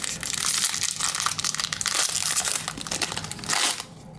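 Foil wrapper of a 2021 Topps Series 1 jumbo baseball card pack crinkling and crackling as it is handled and torn open by hand. The sound quietens shortly before the end.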